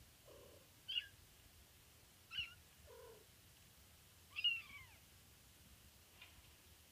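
Kittens about four and a half weeks old mewing: three high-pitched mews about a second and a half apart, the third the longest and loudest, falling in pitch at its end, with two fainter, lower sounds between them.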